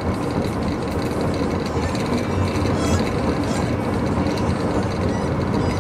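Steady road and engine noise inside a moving car's cabin. A faint, brief high whine from a Pembroke Welsh Corgi puppy in its travel kennel comes about halfway through.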